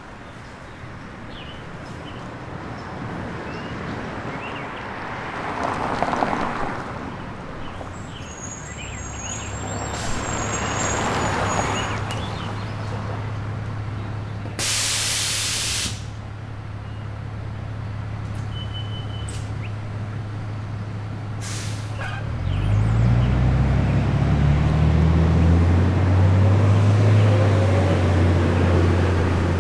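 Road traffic: noise swells as vehicles pass, then a vehicle's engine settles into a steady low hum. About halfway there is a loud burst of hiss lasting over a second. Near the end an engine revs up with rising pitch and pulls away.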